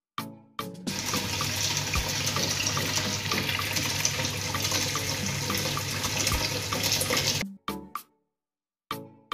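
Tap water running into a steel pot in a stainless-steel sink while hands wash cut stingray pieces in it: a steady splashing rush that starts about a second in and cuts off suddenly near the end. Short music notes sound briefly before and after the water.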